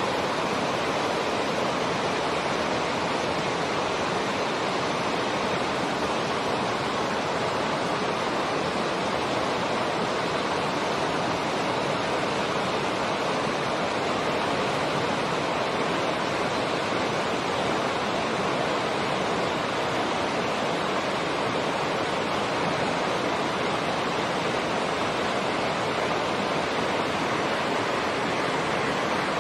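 Steady rushing of running water, even and unchanging throughout, with no calls or other distinct sounds standing out.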